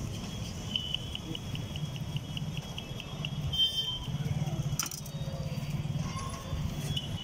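Knife chopping rapidly on a wooden chopping block, an even run of ringing ticks at about five a second, then a single sharp knock a little past the middle, over a steady low hum.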